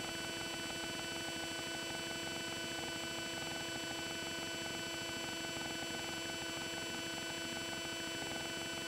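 Room tone: a steady hiss with a faint electrical hum made of several fixed tones.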